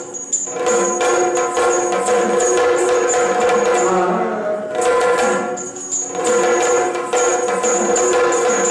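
Yakshagana accompaniment: a steady drone under rhythmic barrel-drum strokes and repeated bright metallic jingling.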